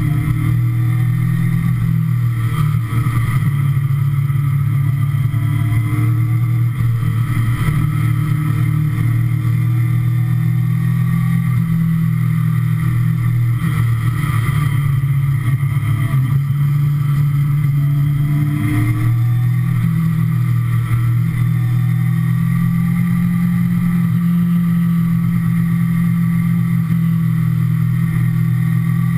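Kawasaki ZX-6R sport bike's inline-four engine running under way at steady mid revs, its note dipping and climbing again several times as the throttle is eased and opened through the bends, with wind rushing past.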